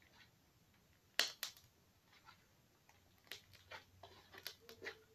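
Slime being squeezed and stretched in the hands: a sharp pop about a second in, a smaller one just after, then a run of small clicks and squelches in the last two seconds.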